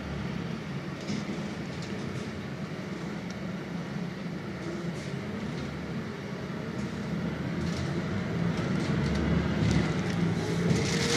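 Interior ride noise of a Scania Citywide 12 LF CNG city bus: steady low engine hum over road rumble. In the last few seconds it grows louder, with a faint whine rising in pitch and light rattling.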